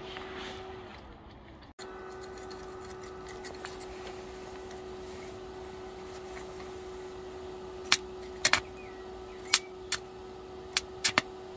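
A steady hum, then from about eight seconds in a series of sharp crackles as a 6013 stick electrode is struck against the work like a match to start the welding arc.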